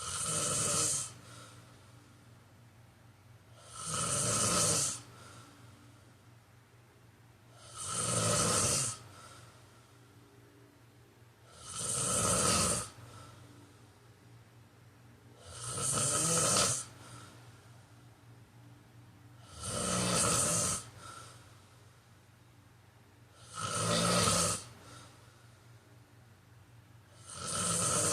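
A person snoring in a slow, regular rhythm: eight snores, each about a second long, one every four seconds or so, with quiet breathing gaps between.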